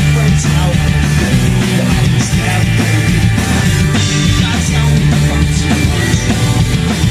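Punk rock band playing an instrumental passage, loud and continuous.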